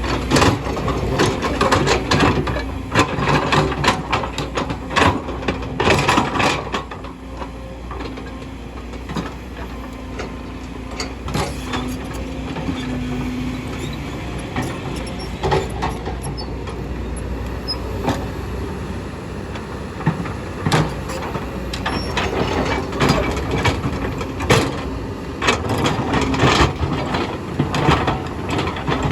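Kobelco hydraulic excavator working: the diesel engine runs steadily while the bucket and rock give repeated clanks and knocks, busiest at the start and toward the end, with a calmer stretch in the middle.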